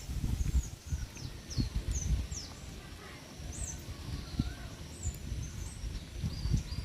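Cats making low, irregular grumbling noises over their food, with small birds chirping in the background in short, quick falling notes.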